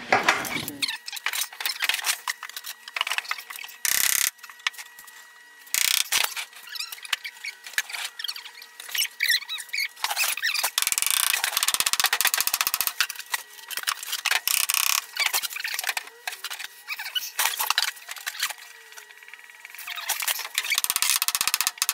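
Handling noise from work at a wooden cabinet: a busy run of clicks, scrapes and rustles, with a faint steady hum underneath.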